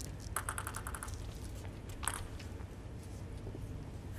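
Table tennis ball being bounced before a serve: a quick run of light ticks about half a second in and a single tick about two seconds in, over a low steady hum.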